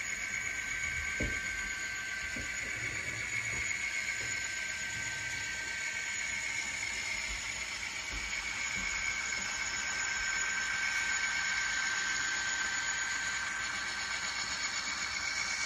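N scale model freight train rolling along the track: a steady hiss with a thin high whine, and a few faint clicks in the first half.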